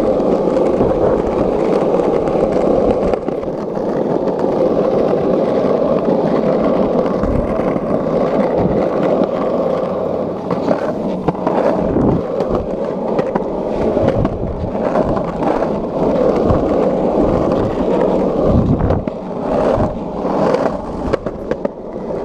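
Skateboard wheels rolling over pavement: a steady, loud rumble with a few sharper knocks along the way.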